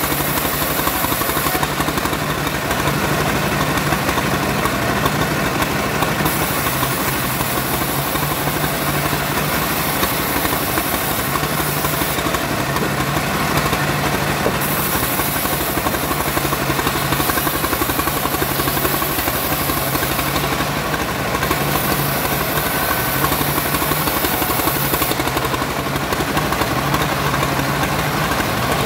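Homemade bandsaw running steadily, its motor droning as it saws sengon wood into rafter stock. A high hiss drops out and comes back every few seconds.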